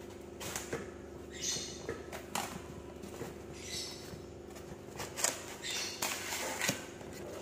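A cardboard shipping box being pulled open and a styrofoam lid lifted out of it: short bursts of scraping and rustling, busiest near the end, over a steady low hum.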